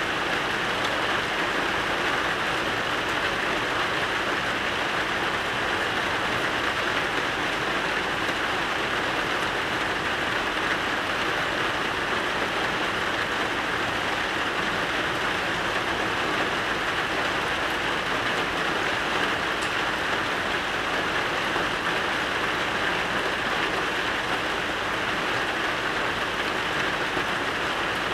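Steady rain falling, an even hiss that holds at the same level throughout with no let-up.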